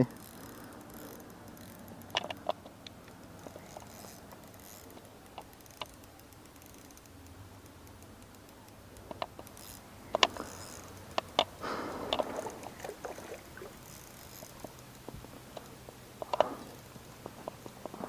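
Spinning rod and reel being handled while a biting fish is worked in: scattered sharp clicks and rattles, bunched around the middle with a short rustling patch, over a faint steady background.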